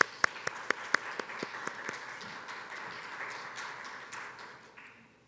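Applause: sharp separate claps at first, thickening into steady clapping that dies away about five seconds in.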